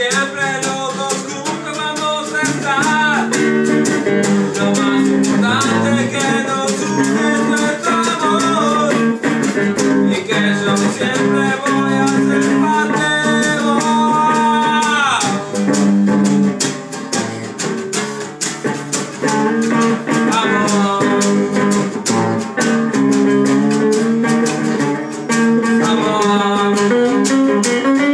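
An instrumental duet of a nylon-string classical guitar and an electric guitar. The electric guitar plays a lead line with string bends, including a long falling slide about fifteen seconds in.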